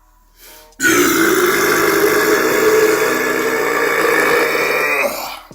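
One long, loud burp held for about four seconds, starting about a second in.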